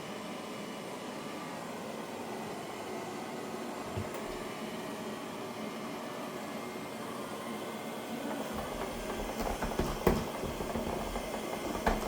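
Roomba robot vacuum running with a steady hum, with a light knock about four seconds in and two sharper knocks near the end.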